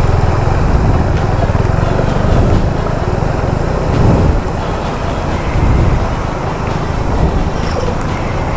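Motorcycle riding along with its engine running steadily, the ride picked up close on the rider's camera, with a brief louder swell about four seconds in.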